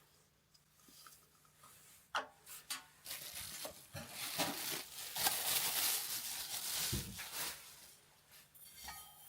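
Kitchenware being handled: a sharp click and a few knocks, then several seconds of rustling, pattering noise with light clatter.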